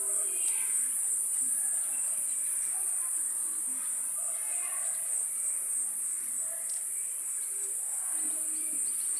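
A steady, high-pitched insect chorus, crickets or similar, trilling without a break, with faint distant voices underneath.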